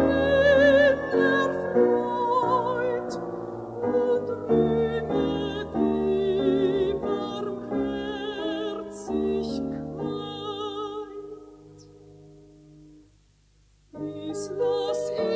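Classical-style music with a wavering vibrato melody over sustained accompaniment. It fades away about twelve seconds in, falls almost silent for a moment, then a new passage starts just before the end.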